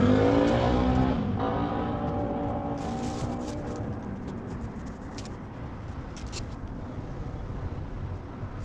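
A motor or engine running with a pitched whine that swells and rises at the start, then slowly falls in pitch and fades away over the next few seconds. A few light clicks follow near the middle.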